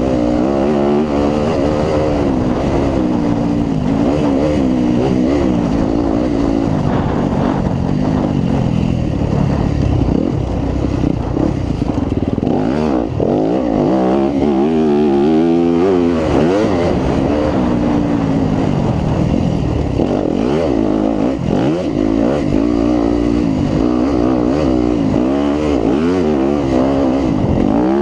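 A 2018 Yamaha WR250F's 250 cc four-stroke single-cylinder engine, ridden hard off-road, its pitch rising and falling over and over as the throttle is opened and closed.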